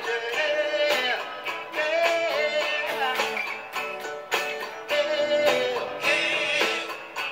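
Stratocaster-style electric guitar playing a melody of plucked notes, many of them bent and wavering, over held lower notes.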